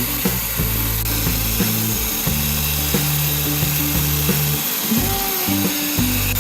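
Background music with held low notes that change about once a second, and light clicks on top.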